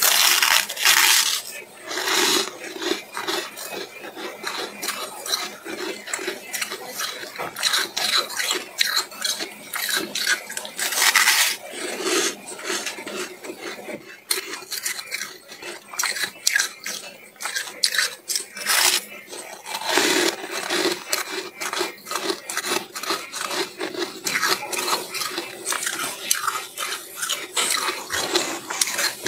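Freezer frost crunching close to the microphone: a dense run of irregular crisp crackles, with several louder crunches.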